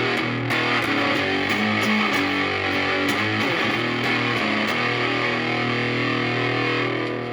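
Stratocaster electric guitar played through a Moollon Fuzz 14 silicon Fuzz Face–style fuzz pedal at almost full fuzz gain into a Marshall Valvestate amp. A run of heavily fuzzed notes, then a held chord from about five seconds in that starts to fade near the end.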